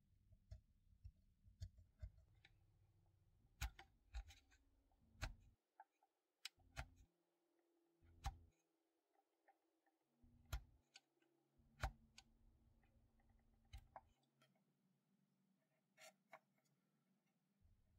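Fine chisel scraping and chipping molded-on detail off a plastic model kit's fuselage: a dozen or so irregular small sharp clicks and short scrapes, faint overall.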